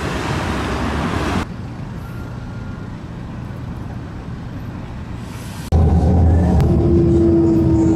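Rail vehicle running noise in three abruptly cut segments. First comes an even rushing noise, then about a second and a half in a cut to a quieter low rumble. Near the end a second cut brings a louder low hum with a steady held tone.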